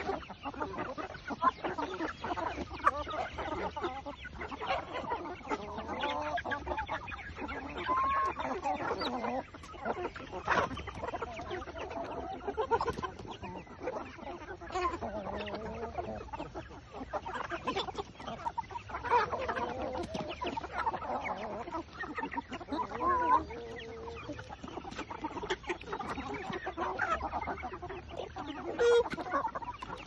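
A large flock of chickens clucking continuously, many short calls overlapping with no break.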